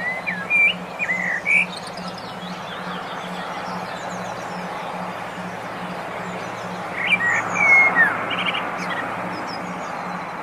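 Songbirds singing short, clear whistled phrases, in a burst at the start and another about seven seconds in, with fainter high chirps between, over a steady hiss and a low pulsing hum.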